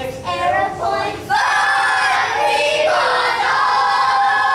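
A group of children singing together. The singing gets much louder about a second in, with long held notes.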